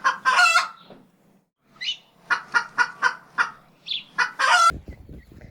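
Chicken cackling: a run of short, evenly spaced clucks between longer drawn-out calls, cut off abruptly near the end.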